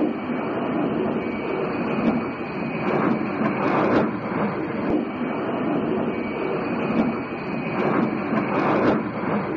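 Jet engine noise from a Tupolev Tu-22M3 bomber landing: a steady, dense rush with no clear tones.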